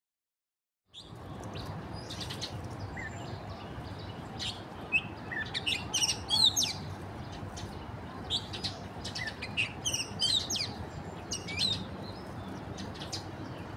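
Small birds chirping with quick, sweeping notes over a steady outdoor background, starting about a second in after silence.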